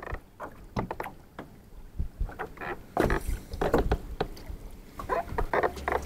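Irregular knocks, clicks and rustles of fishing gear being handled in a small boat. A low steady hum comes in near the end.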